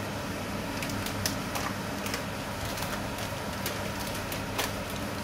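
Egg omelette frying in a non-stick pan: a steady hiss with irregular small crackles and pops throughout, over a low steady hum.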